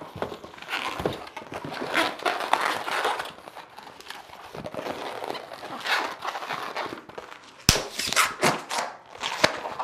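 Walmart-brand latex twisting balloons squeaking and rubbing as they are twisted and folded by hand, in irregular short bursts, with one sharp click about three-quarters of the way through.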